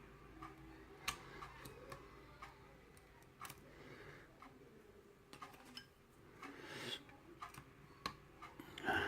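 Faint, irregular clicks and scrapes of a hook pick and tension tool working the pins of a security-pinned Ilco lock cylinder. The clicks are scattered, about one a second, with a short scraping rasp near the end.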